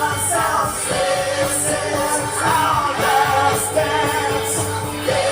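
Background song with a singing voice over a steady beat.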